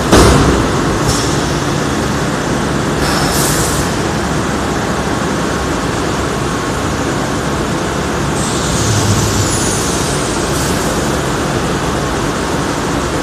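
Thermoforming vacuum packaging machine running with a steady loud mechanical noise, a sharp knock right at the start, and air hissing about three seconds in and again from about eight to ten seconds in.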